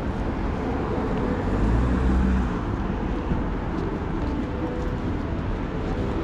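Street traffic noise, with a vehicle passing close about two seconds in.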